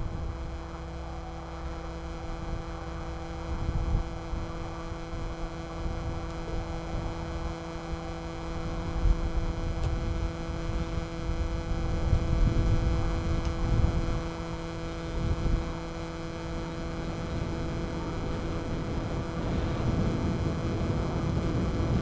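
Force1 F200C Specter quadcopter's brushless motors and propellers humming steadily at a fixed pitch, with wind rumbling over the microphone in gusts.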